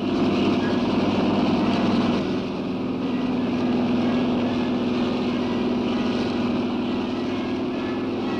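Helicopters' engines and rotors running steadily as a squadron lifts off, a continuous mechanical din.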